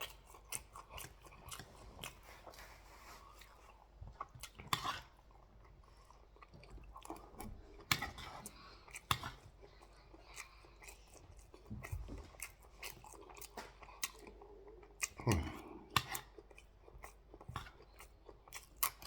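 Close-up mouth sounds of eating jollof rice and turkey: irregular chewing, smacking and biting, with occasional louder crunches.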